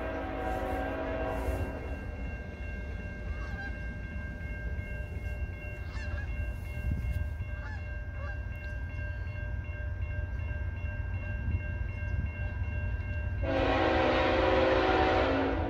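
Freight locomotive horn, a CN ET44AC's, sounding a chord that fades out in the first two seconds, then blowing loudly again for the last two seconds as the train nears the grade crossing. In between, the crossing's warning bell rings steadily over a low rumble.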